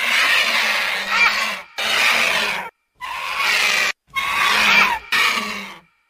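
Vulture giving harsh, hoarse hissing calls: five noisy hisses of about one to two seconds each, separated by short silent gaps.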